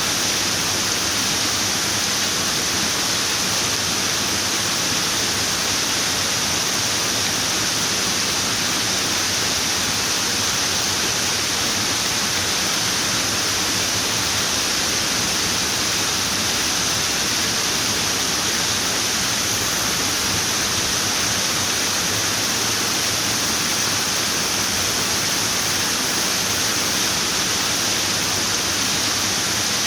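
Running water rushing steadily, an even, unbroken sound with no changes.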